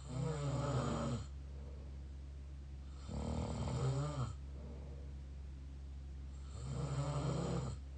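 Snoring through the mouth: three snores about a second long, each a few seconds apart, in a slow regular rhythm.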